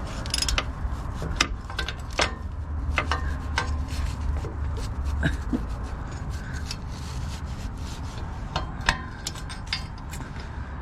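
Socket and wrench clicking, knocking and scraping irregularly against a rusted exhaust bolt as it is worked by hand, the bolt head rounding off under the tool.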